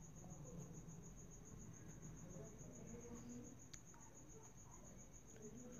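Near silence: quiet room tone with a faint, steady high-pitched trill of about ten pulses a second, like a cricket, and a couple of faint clicks.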